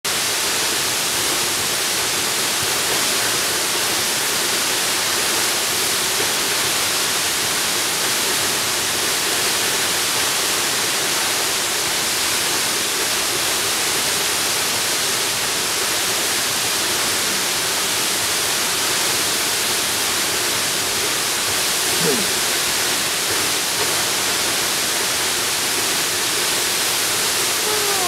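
Tall plunge waterfall: a steady, even rush of falling water.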